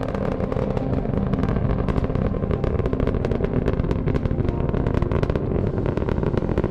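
Rocket engine firing at liftoff: a deep, steady rumble with dense crackling, growing a little louder about a second in.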